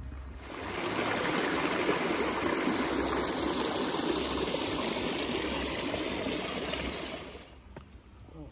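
Shallow stream flowing over mossy stones, a steady noise of running water that comes up shortly after the start and falls away near the end.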